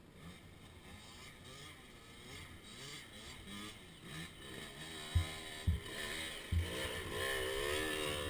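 A child's KTM 65 two-stroke dirt bike engine revs up and down, growing louder as it comes close over the last few seconds. Three dull thumps come in the second half.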